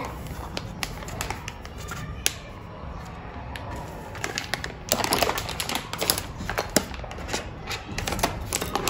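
Irregular light clicks and taps over a low background hum, bunching into quick clusters about five seconds in and again near the end.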